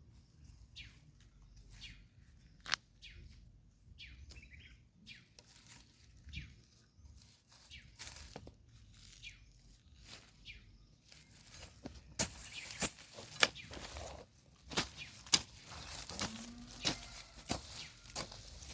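Light rustling and scraping with scattered small clicks, growing busier and sharper about twelve seconds in: hands working garden soil and plants while planting.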